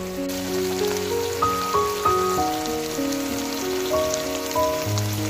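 Mapo tofu sizzling and simmering in a wok, a steady crackling hiss like rain, under soft background music of slow, held notes.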